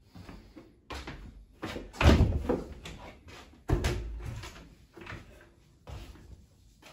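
A series of knocks and bumps against a wooden panelled door, with two heavy thuds about two seconds and nearly four seconds in among lighter clicks. Near the end comes the click of the door's latch as it is opened.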